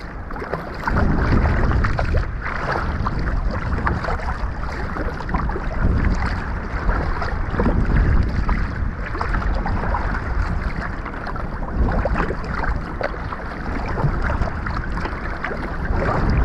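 Water splashing and sloshing around a moving kayak in surges every second or two, with wind buffeting the microphone.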